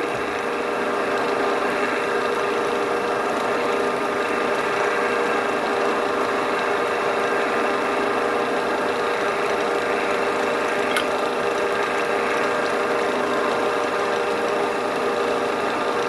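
Wood lathe running steadily, an even machine hum with a single light click about eleven seconds in.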